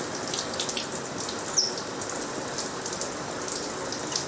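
Shower spray running steadily, water hissing and splattering in a shower stall. A brief high squeak about one and a half seconds in.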